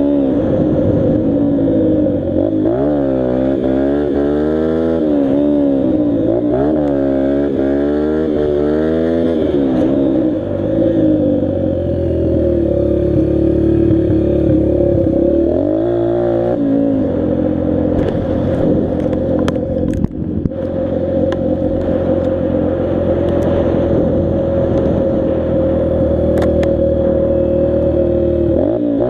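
Dirt bike engine being ridden, its revs rising and falling over and over for about ten seconds, then holding a steady pitch with a short drop in the middle. Scattered sharp clicks and clatter in the second half.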